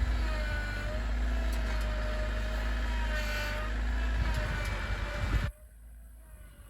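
Tractor engine running hard, a steady rumble with a whining tone that wavers a little in pitch, stopping abruptly about five and a half seconds in.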